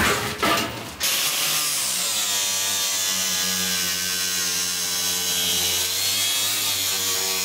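Knocks and clatter for about a second, then a power tool's motor speeds up and runs at a steady pitch.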